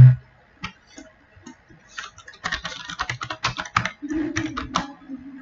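Computer keyboard being typed on: a few scattered key taps, then a quick run of keystrokes. A short low hum follows near the end.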